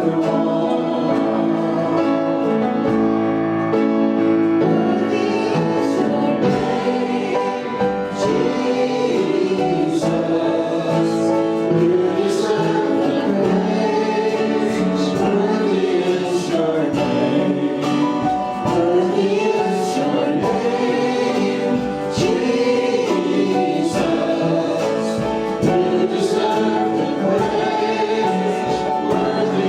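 Congregational gospel worship music: a group of voices singing together over sustained instrumental accompaniment with a steady beat.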